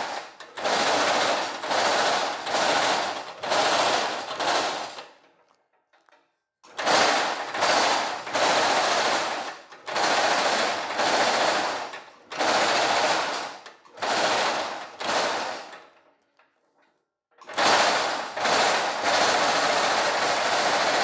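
Reciprocating power hammer striking woven stainless steel mesh in fast rattling runs of about a second each, stopping twice for a second or so. Near the end it runs without a break.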